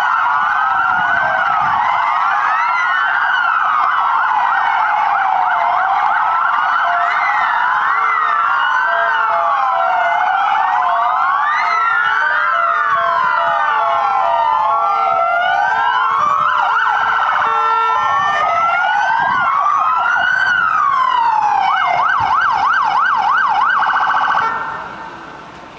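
Sirens of many fire-brigade vehicles sounding at once and out of step, a tangle of overlapping rising and falling wails, with short repeated lower tones in the middle. Near the end they switch to a fast warble, then die away.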